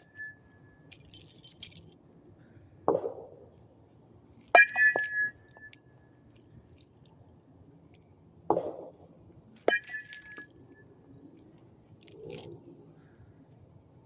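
A bat hitting tossed balls twice, about five seconds apart, each hit a sharp, ringing ping. A duller knock comes a second or two before each hit.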